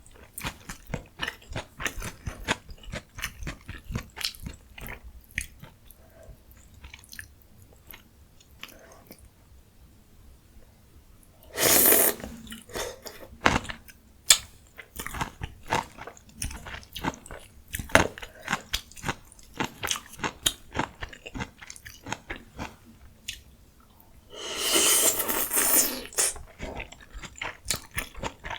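Close-miked eating sounds: continual chewing with many small crunchy bites of ramyun and mustard leaf kimchi. Two longer, louder slurps of noodles, one about twelve seconds in and a longer one of over a second near the end.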